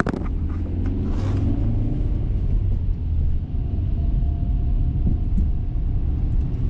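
Steady low rumble of a car driving, heard from inside the cabin. A sharp knock at the start and a few clicks and rustles in the first second or so come from the camera being handled.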